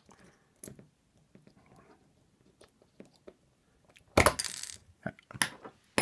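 Small metal tools and lock parts clicking and clinking as a brass lock cylinder is dismantled: faint light clicks at first, then a sharp metallic clatter about four seconds in and another clink shortly after.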